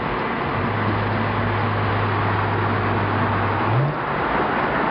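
2011 BMW 335i's turbocharged inline-six with an aftermarket downpipe and Vishnu catback exhaust, heard from inside the cabin, cruising at about 2,000 rpm with a steady low exhaust drone over road noise. Near the end the drone rises briefly in pitch as the revs pick up.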